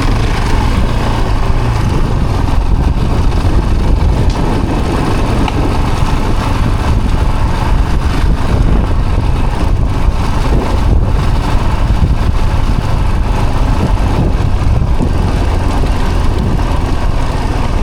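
A vehicle engine running steadily while driving, with continuous road and wind noise and no changes or distinct events.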